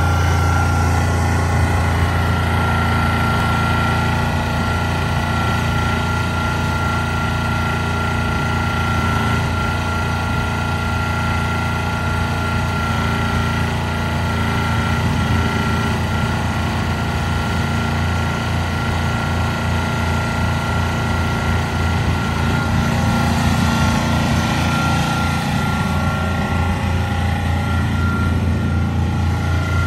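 Mini excavator's small engine running steadily while the machine tracks and turns, with a steady high whine above the engine note.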